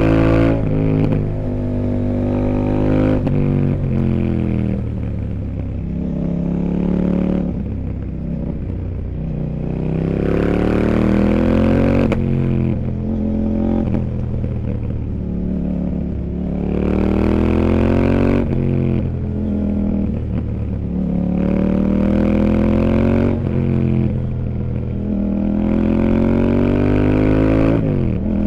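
CFMOTO 800NK Sport's parallel-twin engine heard from on the bike, revving up and easing off again and again, its pitch climbing and then dropping suddenly several times.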